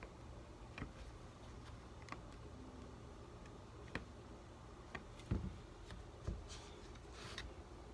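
Quiet handling noises from working shoe glue onto a water shoe: scattered light clicks and taps, two soft thumps about five and six seconds in, and short rustles near the end.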